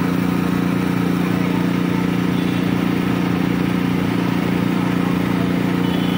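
Small petrol engine of a portable hydraulic power pack running steadily, driving the hydraulic rerailing jacks under a derailed railway wagon.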